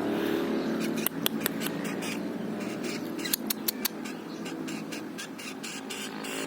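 Canaries pecking at greens held out by hand: quick, sharp beak clicks in two short clusters, about a second in and again a little after three seconds.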